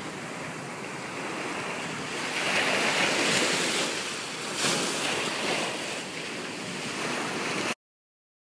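Ocean surf on a sandy beach: waves breaking and washing up the shore in a steady rush that swells louder a couple of times. It cuts off abruptly to silence near the end.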